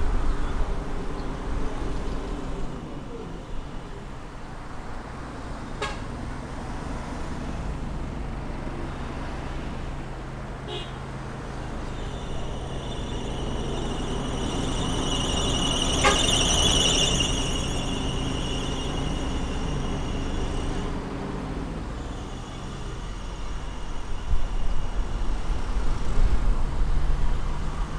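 Car driving in city traffic: a low steady engine hum and road noise, with a high-pitched squeal that holds for about nine seconds in the middle.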